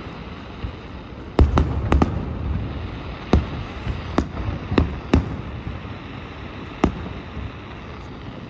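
Aerial fireworks shells bursting in a series of sharp bangs. Three come close together a little over a second in, then single bangs follow about a second apart until around seven seconds in.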